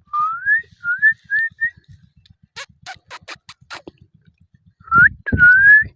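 Clear whistling in upward-sliding notes: one longer rising whistle, then three short rising whistles. A run of about six sharp clicks follows, and near the end come two more rising whistles.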